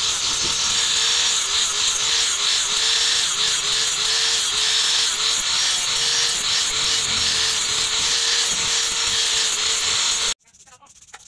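Handheld angle grinder with an abrasive disc grinding the flat of a leaf-spring steel cleaver blade: a steady motor whine over a loud hiss of abrasion, the pitch sagging briefly again and again as the disc is pressed into the steel. It stops abruptly near the end.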